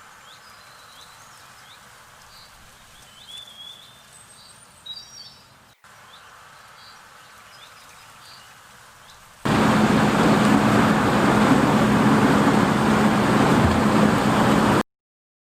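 Small birds chirping over a quiet rural background. About two-thirds of the way in, a loud, steady machine noise with a low hum cuts in abruptly: a New Holland TX30 combine harvester running. It stops suddenly shortly before the end.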